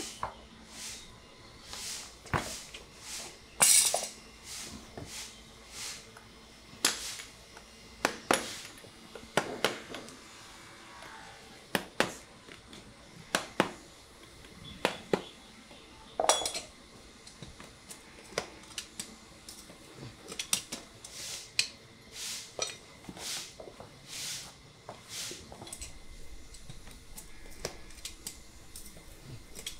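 Farrier's hammer and hand tools tapping and clinking on the nails of a steel horseshoe fitted to a horse's hoof, in irregular sharp metallic taps, one or two a second, a few ringing briefly.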